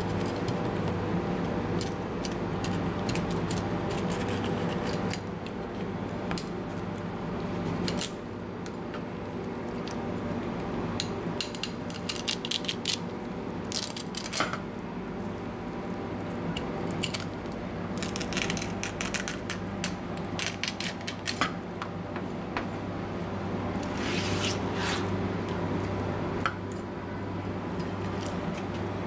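Kitchen knife filleting a skipjack tuna on a plastic cutting board, making irregular clusters of short sharp clicks and scrapes as the blade cuts along the backbone and meets the board. A steady low hum runs underneath.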